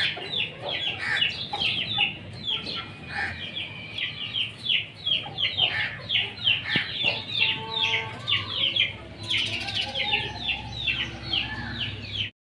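Chickens: dense, rapid, high-pitched chirping with some lower clucking calls, cutting off abruptly near the end.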